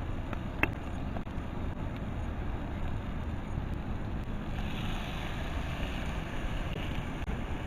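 Steady low rumbling noise of wind on the microphone, with a single sharp click just over half a second in.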